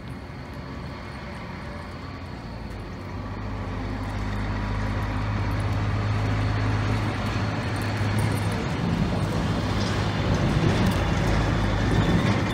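A motor vehicle's engine running with a steady low hum, growing louder over the first several seconds and then holding.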